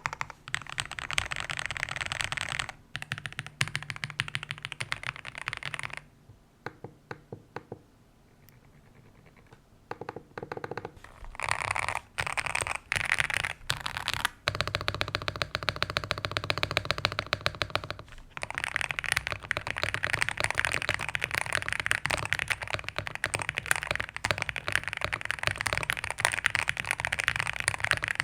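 Typing on a Zuoya GMK67 mechanical keyboard with KTT Kang White V3 linear switches and GMK-clone keycaps: a fast, dense patter of keystrokes. About six seconds in it thins to a few scattered presses and a near-quiet pause. Fast typing resumes around eleven seconds in.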